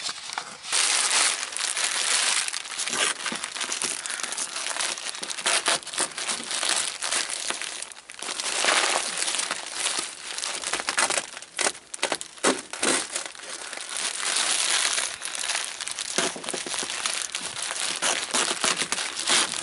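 Black plastic sheeting around a flexible duct crinkling and rustling as hands press and wrap it, with duct tape being pulled off the roll and pressed down over it. The crackling comes in uneven surges.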